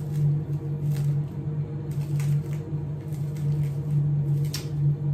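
Plastic cling film being pulled out and spread over a table, with scattered faint crinkles and one sharper crackle near the end, over a steady low hum.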